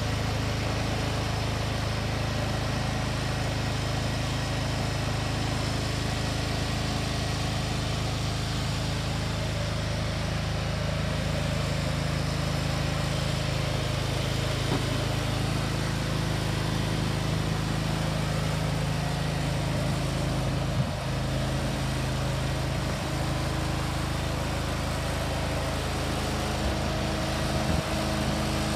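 Engine of a FlexiRiser pump-puller trailer running steadily at a constant speed, with a couple of short knocks late on.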